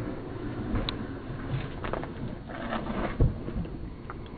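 Shoes and dog paws scuffing and scrabbling on rock during a scramble up a steep rock face, irregular scrapes and clicks with a sharp knock about three seconds in.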